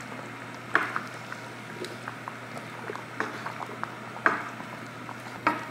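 Kitchen knife cutting through a soft block of congealed blood and striking a wooden cutting board: three sharp knocks, about a second in, past four seconds and near the end, with lighter taps between, over a low steady hum.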